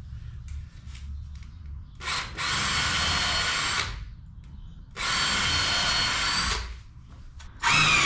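Power drill run in short bursts on a timber door lining, drilling or driving a fixing screw through it: a steady motor whine for about two seconds, again for about a second and a half, and starting once more near the end.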